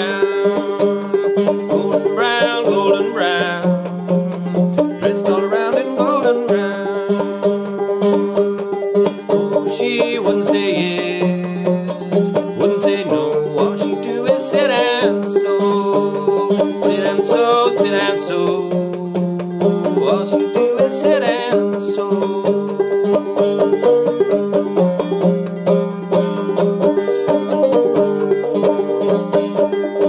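Five-string banjo played clawhammer style in sawmill tuning: a steady rhythmic run of plucked melody notes over ringing drone strings.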